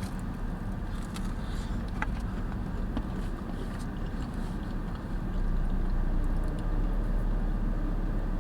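Steady low rumble with a few faint clicks; it grows a little louder about five seconds in.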